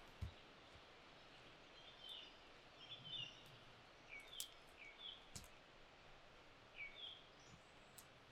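Faint forest ambience with a small bird chirping in short, high calls, about eight of them, a couple sliding down in pitch. A few soft steps and twig clicks on the forest floor.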